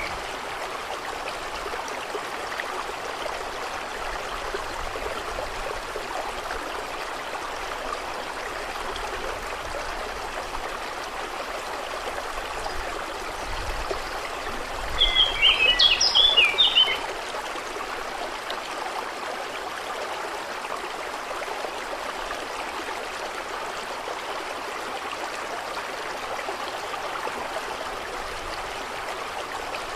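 Steady, even rush of running water. About halfway through, a bird calls in a quick, loud run of chirps lasting about two seconds.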